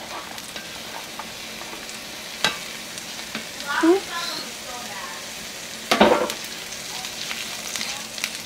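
Butter sizzling in a frying pan as minced garlic is added and stirred in with a silicone spatula. A sharp knock comes about two and a half seconds in, and louder short clatters come near four and six seconds, the second the loudest.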